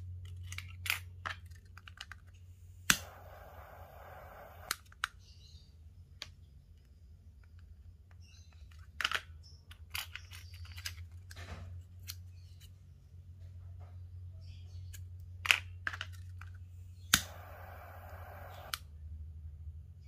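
Scissors snipping paracord a few times, and a torch lighter clicked on twice, its jet flame hissing for about a second and a half each time as the cut cord ends are melted.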